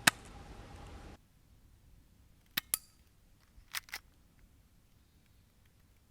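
Crown Walther PPK/S spring air-cocking pistol being worked: a sharp click right at the start, then two quick double clicks of its mechanism about a second apart. A background hiss cuts off suddenly about a second in.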